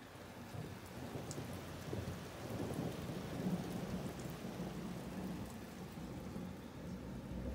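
Rolling thunder: a deep rumble that builds over the first few seconds, peaks about halfway through and keeps rolling more weakly, with rain falling.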